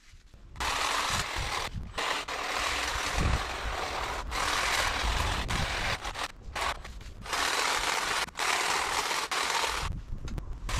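Cordless hedge trimmer running, its reciprocating blades cutting through a cotoneaster hedge. It starts about half a second in and runs in spurts, stopping briefly several times.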